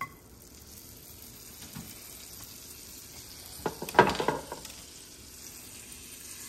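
Butter sizzling in a hot uncoated stainless steel frying pan, a steady hiss that builds after it goes in. About four seconds in comes a short, louder clatter as a kitchen knife is picked up from the counter.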